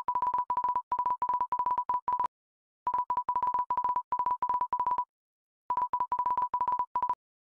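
Rapid short beeps of one steady electronic tone, in three runs separated by brief pauses: a beep sound effect standing in for a voice as the on-screen captions appear.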